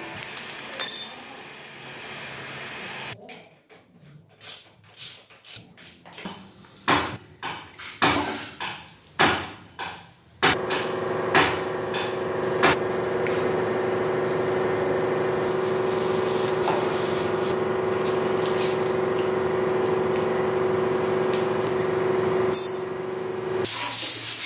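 Hand tools knocking and clinking on the motorcycle's metal parts, a dozen or so separate strikes, then a steady mechanical hum at a constant pitch that starts suddenly and runs for about thirteen seconds.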